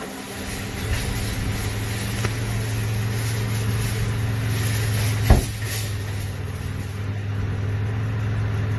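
A car engine running steadily, with a single sharp knock about five seconds in.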